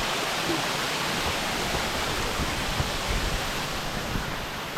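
Waterfall rushing steadily, a continuous even wash of falling water.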